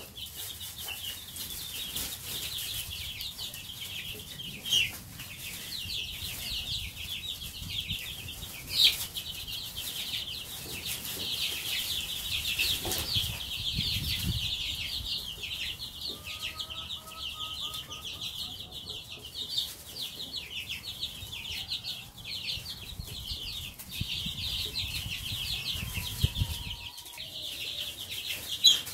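A brood of two-week-old Marans chicks peeping without pause, many high, thin cheeps overlapping, with a few sharp clicks standing out.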